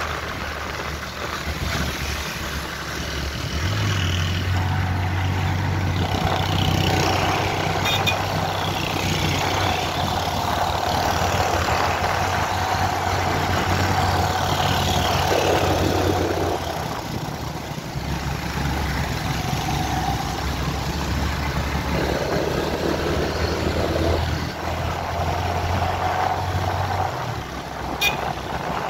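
Motorcycle engine running steadily while riding, with wind and road noise rushing over the microphone; the engine note eases off briefly a little past the middle.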